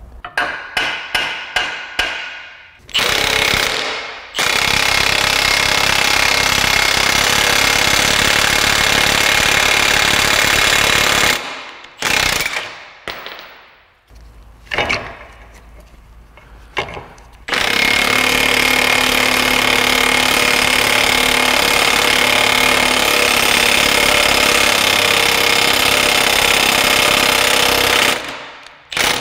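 Impact wrench hammering as it drives the threaded rod of a bushing press tool, pressing a new bushing into a lower control arm. Several short bursts, then two long runs of about eight and ten seconds with a few short bursts between them, and short bursts again at the end.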